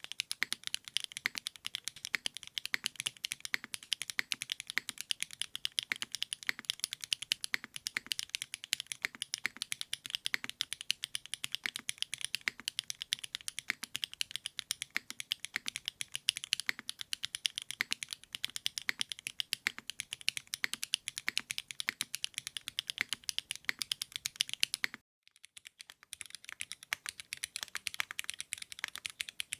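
Fast, continuous typing on a custom mechanical keyboard with GMK Rubrehaku keycaps: a dense run of key clacks. It stops abruptly for about half a second near the end, then resumes.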